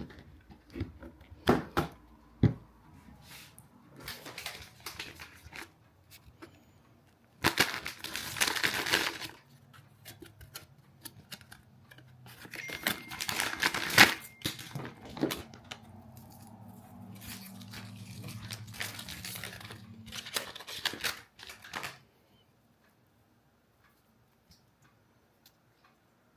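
Handling noise: a few sharp clicks, then two longer stretches of rustling or scraping with one loud click about halfway through, fading to softer rustling. It drops to near silence for the last few seconds.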